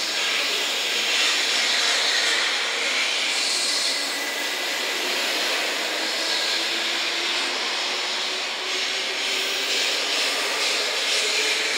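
JR West Class 923 Doctor Yellow Shinkansen inspection train pulling out and gathering speed: a steady rush of wheel and running noise with a faint motor whine that slowly rises in pitch.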